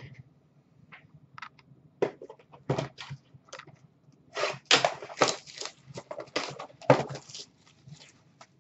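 A sealed hockey-card hobby box being opened and handled: scattered clicks at first, then a dense run of crackling and crinkling from its wrapping and cardboard, loudest just past halfway.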